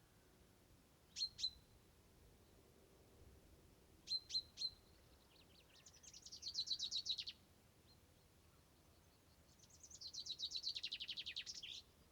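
A small songbird calling and singing: a pair of sharp high notes, then three more, then two quick trilled phrases of rapidly repeated high notes, the second longer and dropping in pitch toward its end.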